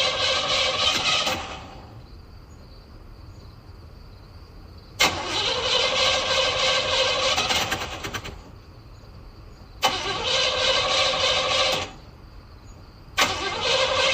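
Car engine cranking on the starter motor without catching, in repeated attempts of two to three seconds: one attempt ends about a second and a half in, and three more begin at roughly 5, 10 and 13 seconds. Each attempt opens with a sharp starter click and a rising whine as the engine turns over. In the pauses between attempts there is a faint steady high tone.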